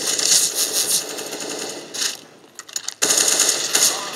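Rapid automatic gunfire from a first-person shooter game, played through the Asus ROG Strix G15 laptop's built-in speakers. A burst of about a second, a few single shots, then a second burst about three seconds in.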